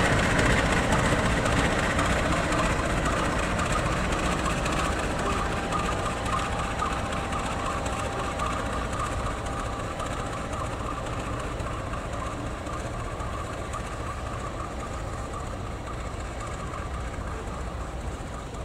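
Diesel-electric locomotive running light along the track, its engine and wheels on the rails growing steadily fainter as it moves away.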